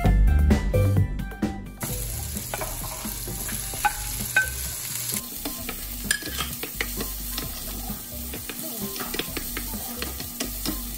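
Music plays for about the first two seconds and then cuts out. After that, sliced onions, garlic and red bell pepper strips sizzle in oil in a nonstick frying pan, with frequent short clicks and scrapes from a wooden spoon stirring them.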